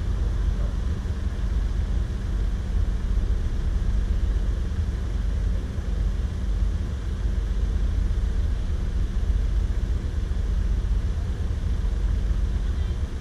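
Steady rumble of a vehicle on the move: engine and road noise with no distinct events.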